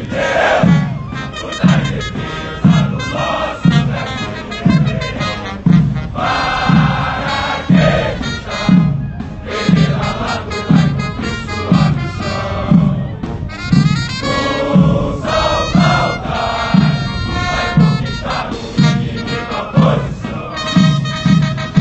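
Military band playing a march, brass over a steady bass drum beat about every 0.8 seconds, with many men's voices singing along.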